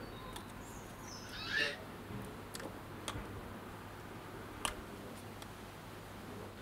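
Faint outdoor background hiss with one short bird call about a second and a half in, followed by a few sharp clicks.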